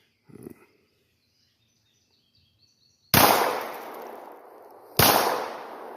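Two 9mm pistol shots from a Glock 19 Gen 4, about two seconds apart, starting about three seconds in. Each has a sharp crack followed by a long fading echo.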